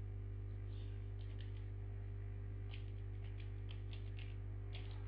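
Steady electrical mains hum with faint computer keyboard keystrokes clicking in short runs, about a second in, again through the middle, and near the end.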